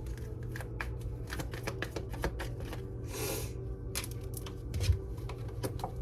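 Tarot cards being shuffled by hand: a quick, irregular run of soft card clicks and flicks, with one longer swish about three seconds in.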